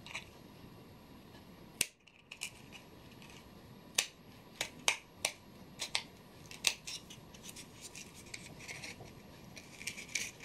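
Scissors snipping through thin blue plastic in short, irregular cuts: a sharp click at each snip, about a second apart and closer together near the end.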